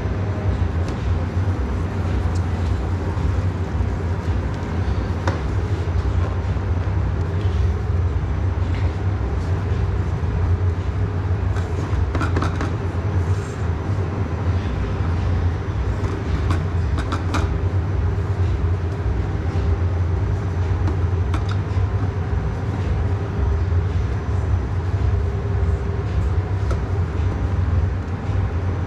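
Steady low machine hum of commercial kitchen equipment, with a few light clicks and clatters of utensils or trays.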